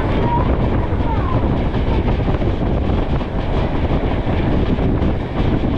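Passenger train running at speed, heard from an open carriage window: a steady rumble and rush of wheels on the track.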